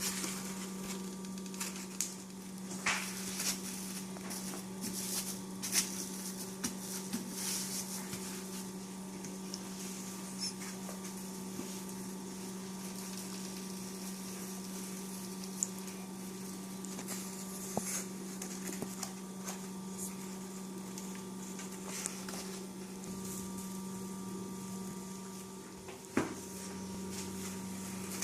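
Light scattered taps, rustles and scrapes of insulation panels being handled and stuck onto a box, over a steady electrical hum.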